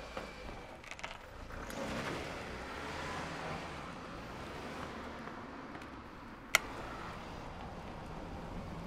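A car pulling away from the kerb and driving off: engine and tyre noise swells about two seconds in, then settles into steady noise. A single sharp click comes about six and a half seconds in.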